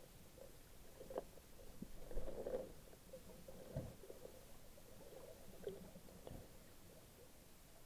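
Muffled underwater sound through a camera's waterproof housing: faint water movement and bubbles, with a few dull knocks and a louder muffled rush about two seconds in.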